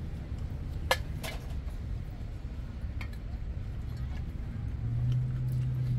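Plates and utensils clinking sharply, twice about a second in and once more later, over a steady low rumble that swells into a low hum near the end.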